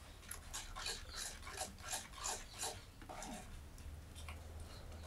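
Rhythmic rasping scrapes, about three strokes a second, for the first three seconds, then fainter and sparser scraping over a low hum.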